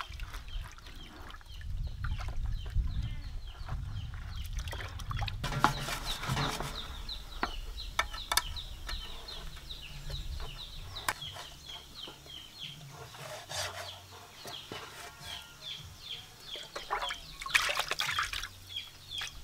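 A frying pan being washed by hand in a plastic basin of water: scrubbing, sloshing and splashing, loudest about six seconds in and again near the end, with a few light clinks. A bird keeps cheeping, a few short calls a second.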